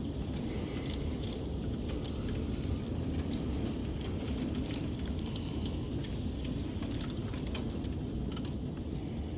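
Storm wind and rain: a steady low rushing with scattered sharp ticks of raindrops striking close by.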